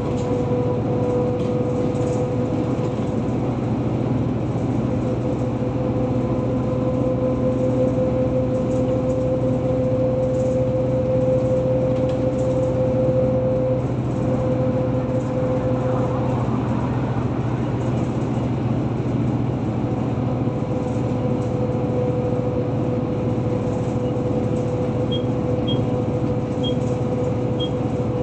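Car cruising at highway speed: steady tyre and road noise with an even engine and drivetrain hum. Near the end come faint, regular high ticks about once a second.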